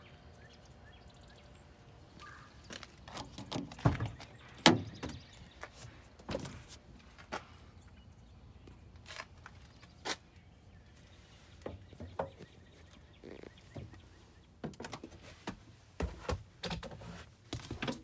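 Scattered knocks, clicks and thuds of a motorhome's doors and hatches being worked. The loudest come about four and five seconds in, with another cluster near the end.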